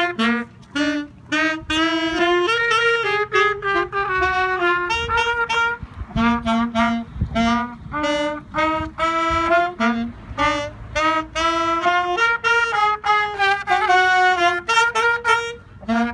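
Trumpet and saxophone, joined by a third small wind instrument, playing a melody together in short, separated notes.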